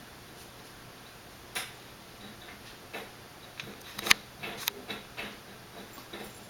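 Irregular light clicks and taps of kittens' claws and paws on a hardwood floor as they scamper and pounce in play, the sharpest tap about four seconds in.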